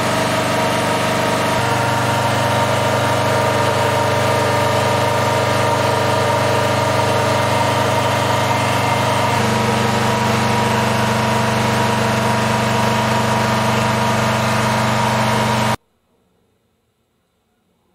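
Generator engine running with a steady hum. Its tone shifts slightly twice, and it cuts off abruptly near the end.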